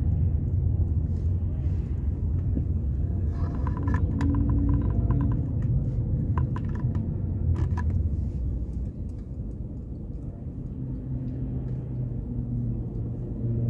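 Low, steady rumble of road and engine noise inside a slowly moving car's cabin, with a run of faint clicks a few seconds in.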